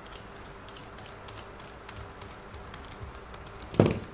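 Light, irregular clicks and taps of small plastic RC car parts and tools being handled, with one louder knock near the end.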